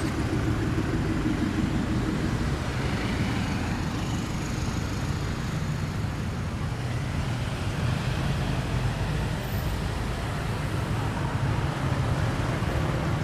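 Steady street traffic: car and motorbike engines passing, with a pickup truck's engine fading out over the first couple of seconds.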